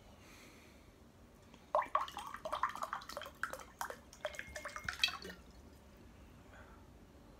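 Sparkling mineral water poured from a glass bottle into a glass tumbler: splashing and dripping into the glass, starting about a second and a half in and stopping after about three and a half seconds.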